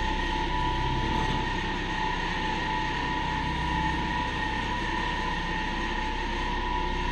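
A Zremb passenger elevator car travelling through its shaft, heard from the car roof: a steady low rumble and rushing noise with a constant high whine.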